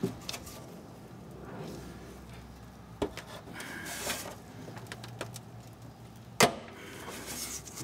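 Ratchet and slotted oxygen-sensor socket working a rust-seized rear (downstream) oxygen sensor in the exhaust pipe of a 1996 Volvo 850: a few short metal clicks, then one sharp crack about six and a half seconds in as the sensor breaks loose.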